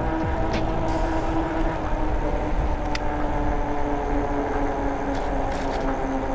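Electric bike riding along at speed: a steady whine from its hub motor over tyre and wind rumble on the microphone. A few light clicks sound through it.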